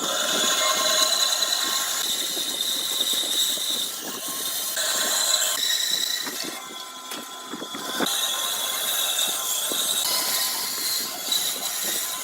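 Woodworking machinery running: a steady high hiss with a whining tone and scattered sharp knocks, the mix changing every second or two.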